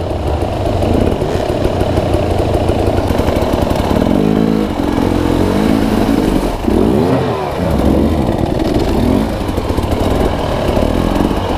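Dirt bike engine running under throttle, its pitch rising and falling as the rider works the throttle, with a sharp rev up and back down about seven seconds in.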